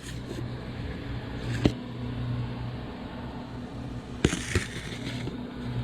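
A steady low hum with two sharp knocks, about one and a half and four seconds in.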